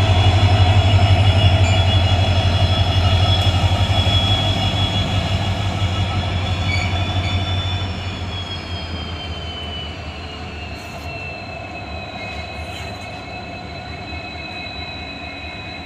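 Twin WDG4G diesel locomotives humming: a strong low drone with several high steady whines over it. About eight seconds in the drone drops away and the whines slide down in pitch and go quieter.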